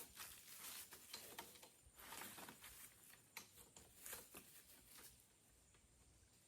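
Faint scattered knocks, clicks and rustles as a ladder is moved and turned around, thinning out after about five seconds.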